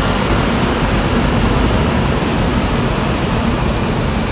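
Steady running noise of a Concarril NS-88 rubber-tyred metro train travelling between stations: an even rush and rumble heard inside the passenger car.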